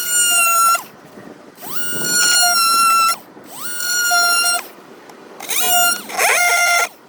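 Oscillating multi-tool cutting plastic dash-panel trim in short runs. Each run winds up to a steady high whine, holds for about a second, and stops, about five times over.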